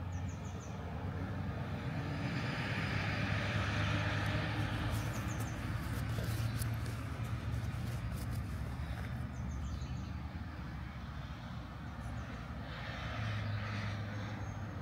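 Road traffic: vehicles passing, the noise swelling twice, over a steady low engine hum.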